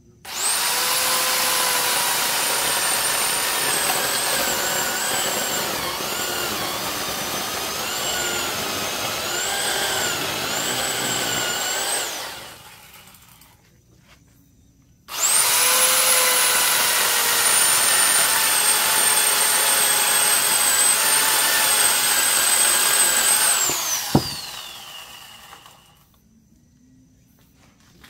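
Small corded electric chainsaw cutting into a thick log in two runs: the motor whine dips and wavers in pitch as the chain bites the wood, then winds down. The second run ends with a sharp click and a falling whine as the motor coasts to a stop.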